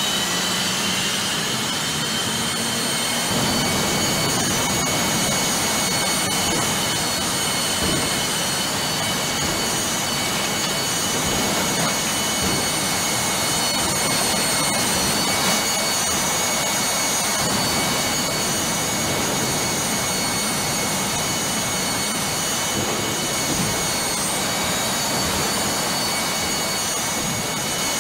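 Jet engine running flat out: a steady, loud rushing blast with a constant high-pitched whine on top, strong enough to blow light aircraft over.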